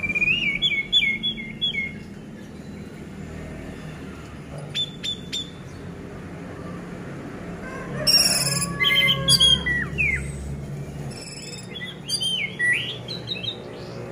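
Orange-headed thrush singing in separate bursts of quick, jumping whistled phrases, each a second or two long, with a few sharp ticks around five seconds in and a loud harsh burst opening the phrase about eight seconds in.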